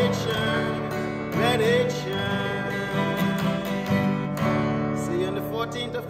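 A man singing with vibrato over a strummed acoustic guitar.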